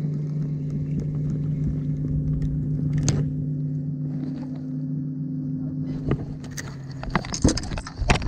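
A bass boat's motor hums steadily at one pitch. From about six seconds in come a series of sharp knocks and thumps on the boat's deck.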